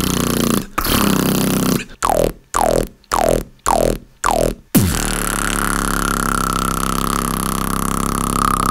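Beatboxer's mouth and voice imitating sound effects: five short sounds about half a second apart, each dropping quickly in pitch, then a long held buzzing sound with a steady high tone over it from about five seconds in.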